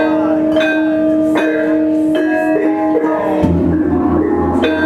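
Indonesian gamelan being played: bronze metallophone keys struck with mallets in a steady beat, a stroke a little under a second apart, each note ringing on. About three-quarters of the way in, a large hanging gong is struck and hums low and wavering under the keys.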